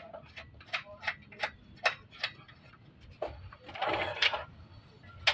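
Sharp metal ticks, about three a second, from a wrench working the mounting nuts of a Fuso truck's air dryer, with a brief scraping clatter about four seconds in.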